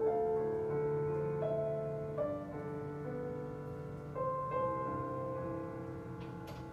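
Slow, gentle piano music from a video's soundtrack, played over the room's speakers. Single notes and chords ring on, with a new one about every second.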